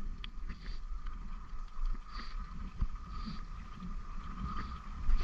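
Creek water rushing steadily around the wader, with a low rumble from wind on the microphone and a few faint clicks.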